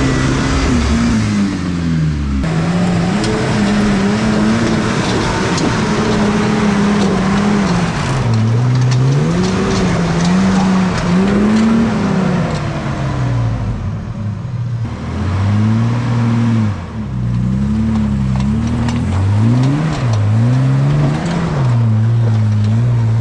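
4WD engines revving hard up and down, over and over, as they climb a steep loose dirt slope one after the other, with tyres spinning and scrabbling in the dirt.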